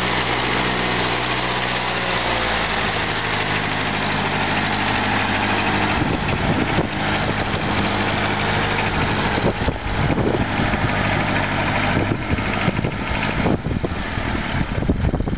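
1958 McCormick International B275 tractor's four-cylinder diesel engine running as the tractor drives along, its note shifting about two and a half seconds in. Wind buffets the microphone in gusts through the second half.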